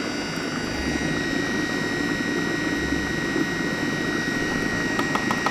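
Red countertop food processor running steadily, blending mango pulp with cream cheese and condensed milk while vanilla is added. A few light clicks come near the end.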